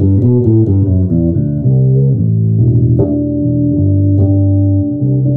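1992 Alembic Essence fretless four-string bass being played: a quick run of notes, then longer held notes from about three seconds in. It is played with its tone control about halfway down.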